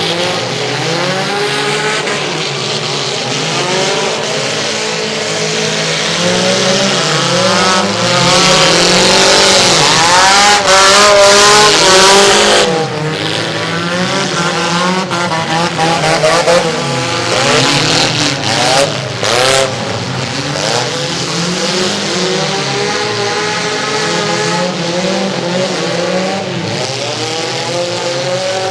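Several mini cars racing, their engines revving up and down over one another. About a third of the way in it grows louder with a rush of noise and a few sharp knocks as cars pass close and bump.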